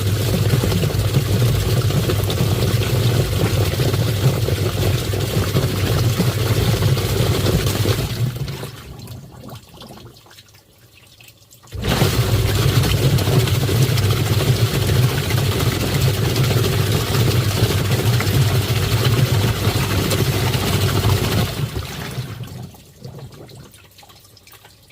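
Twin-tub washing machine's wash motor and pulsator running, churning water with a steady hum, winding down about eight seconds in, pausing a few seconds and starting up again abruptly, then winding down again near the end: the stop-start cycle of the wash action.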